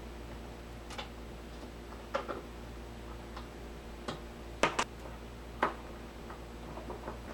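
Irregular sharp clicks and taps of a metal wrench on connector bolts being tightened into cross dowels in a plywood rack, about eight in all, the loudest a close pair a little past halfway, over a steady low hum.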